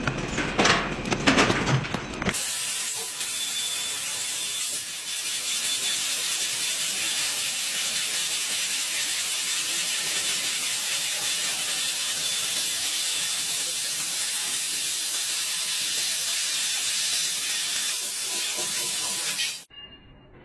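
Machinery clattering briefly, then a steady loud hiss that cuts off suddenly near the end.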